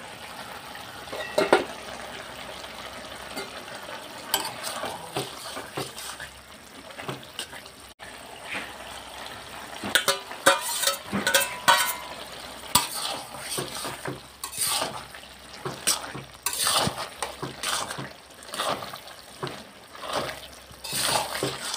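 Metal spoon stirring and scraping cooked bottle-gourd greens and dried fish around a metal pot, over a low frying sizzle. The scraping strokes come thicker and louder in the second half.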